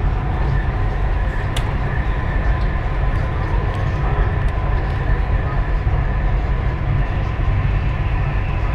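Dubai Metro train running along its elevated track, heard from inside the car: a steady low rumble with a faint whine, and a single sharp click about one and a half seconds in.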